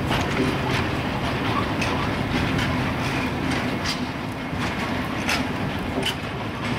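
Empty freight flat wagons rolling past on the track, a steady rumble of steel wheels on rail broken by sharp clacks as the wheels cross rail joints.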